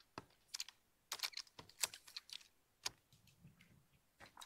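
Faint, irregular small clicks and taps from hands working a crossbow and its scope on a shooting tripod.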